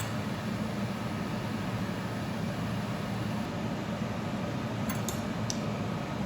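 Steady mechanical hum from a running appliance or fan, with a few faint light clicks about five seconds in.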